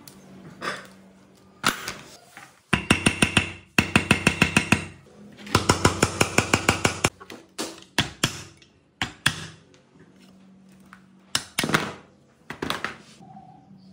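A socket ratchet clicking in three quick runs of about eight clicks a second as bolts are turned out of an old electric water pump motor's housing. This is followed by a few separate metal knocks and scrapes as a screwdriver pries the rusted end cap loose.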